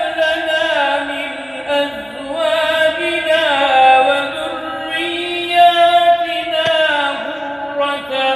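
Quran recitation: a single voice chanting Arabic verses in long, ornamented held notes that glide slowly in pitch, with short breaks between phrases.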